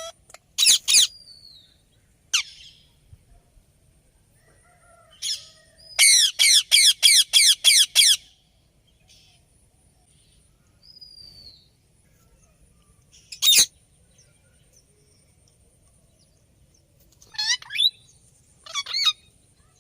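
Indian ringneck parakeet giving loud calls: two just under a second in, then single calls, a fast run of about eight calls at roughly four a second about six seconds in, and a few more calls near the end.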